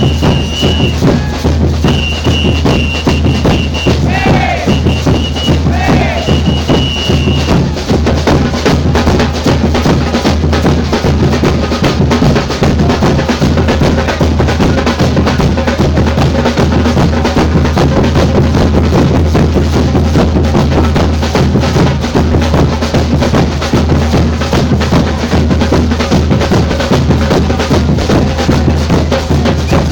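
Samba percussion ensemble playing a steady groove, with deep bass drums under dense drumming and clicking wood-block-like strokes. A high held tone sounds in several blasts over the first eight seconds.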